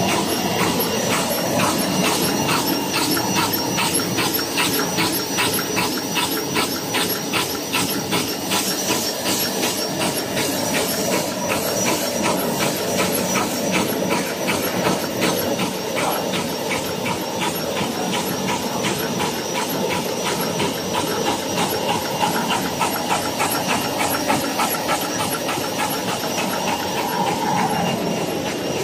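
Pocket handkerchief tissue production line running: a rapid, even clicking from the folding and cutting mechanism over a steady mechanical whir and hiss.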